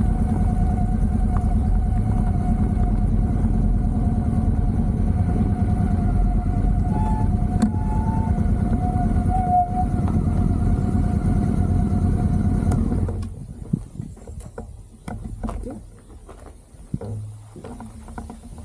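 Steady rumble of a motor vehicle on the move, engine and road noise with a thin steady whine above it. It cuts off abruptly about thirteen seconds in, leaving quieter scattered knocks and rustles.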